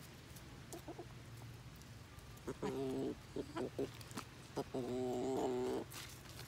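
Chicken calling: a pitched call of about half a second, a few short clucks, then a longer, steady call of about a second.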